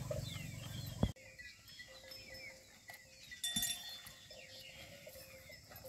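Outdoor pasture ambience: a low rumble that cuts off abruptly about a second in, then quieter high chirping and a short livestock call about halfway through.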